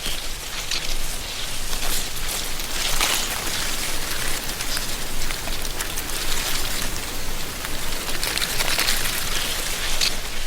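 Autumn wind blowing through a tree canopy, rustling dry leaves: a dense crackling hiss that swells and eases every few seconds.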